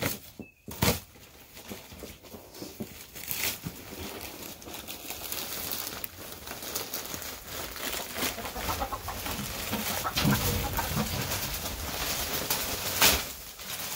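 Pine wood shavings poured out of a large plastic bag onto the coop floor, a rustling hiss that builds and grows louder, with the plastic bag crinkling and hens clucking.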